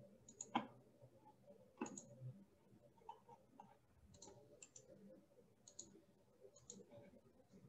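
Faint computer mouse clicks, scattered and several in quick pairs, over quiet room tone.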